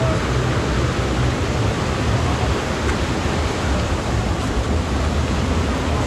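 Steady rush of a waterfall and the white water below it, loud and even, with an uneven low rumble underneath.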